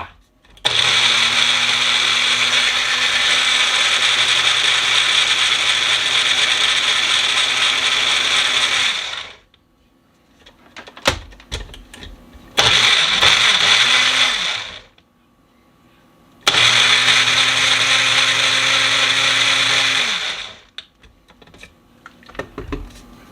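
Blender running on watermelon chunks in three bursts: a long run of about eight seconds, then a short one of about two seconds, then one of about four seconds, each cutting in and out sharply. A few knocks and clatters fall in the gaps between runs.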